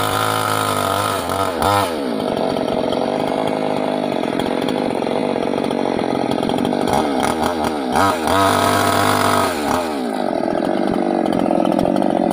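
Chinese-made Stihl-branded two-stroke mini chainsaw at full throttle, cutting teak. Its engine note drops and turns rough as the chain bites into the wood about two seconds in. It clears briefly to a steady whine near the eight-second mark, then bogs down again in the cut.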